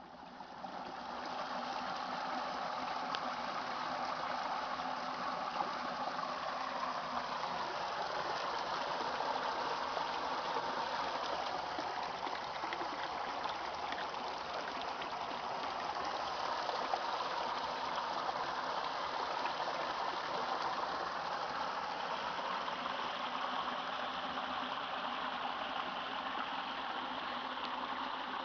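Steady rushing of flowing water, fading in over the first second or two and then holding level.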